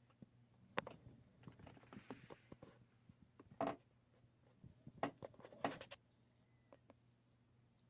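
Dog snoring faintly, with a soft breathy snore about two seconds in and a few short clicks and snuffles.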